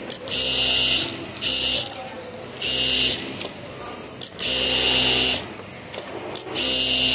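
JACK industrial sewing machine stitching in short runs, five starts and stops of about half a second to a second each, with a sharp click in a couple of the pauses.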